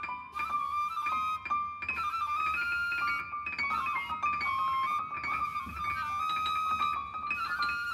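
Small jazz group playing: a flute holds a slow melody line over piano chords.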